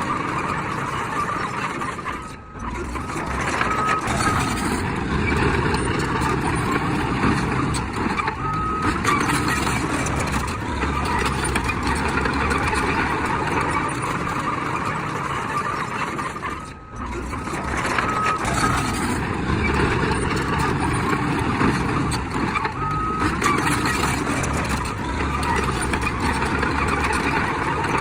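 Heavy earthmoving machinery's diesel engine running hard and steadily, with short reversing-alarm beeps sounding now and then.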